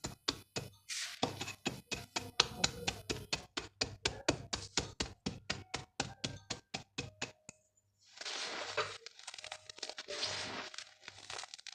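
Dried yellow mud handled by hand: a quick run of sharp taps and clicks, about five a second, then about a second after they stop a grainy crunching and crumbling in a few swells as the mud is crushed.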